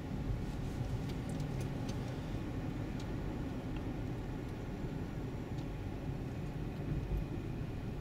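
Road noise inside a moving car's cabin: a steady low rumble, with a few faint clicks about one to three seconds in.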